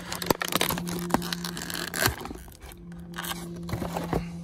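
Clear plastic blister tray crackling and clicking as it is handled, busiest in the first couple of seconds and then a few scattered clicks. A steady low hum runs underneath.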